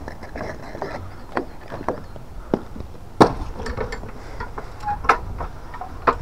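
Irregular sharp knocks and taps, about seven of them at uneven spacing, the loudest a little over three seconds in.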